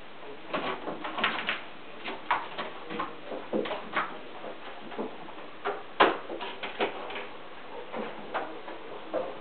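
Irregular light thumps and taps of Siamese kittens' paws jumping onto and scrambling across the wooden platforms and ramps of a cat gym, with the loudest knock about six seconds in.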